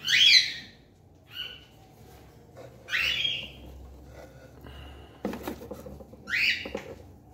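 Cockatiel giving short harsh squawks, about four spaced a second or more apart. A few sharp knocks from handling come in between, about five seconds in.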